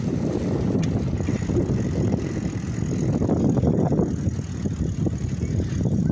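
Steady low rumbling noise from riding a bicycle along a park path: wind on the microphone mixed with the rumble and rattle of the moving bike.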